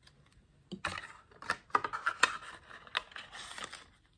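A deck of playing cards being handled and flicked through in the hands: a quick run of crisp card snaps and rustling, starting about a second in and stopping shortly before the end.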